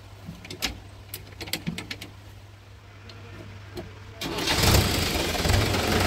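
A few sharp clicks, then about four seconds in a Swaraj 843 XM tractor's diesel engine starts suddenly and settles into a loud, fast, rhythmic running.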